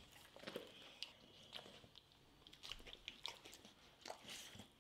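Faint, scattered wet clicks of a dog's mouth, licking its lips and chewing.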